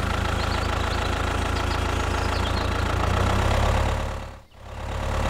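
A tractor engine running steadily at low revs. The sound fades out briefly and comes back in about four and a half seconds in.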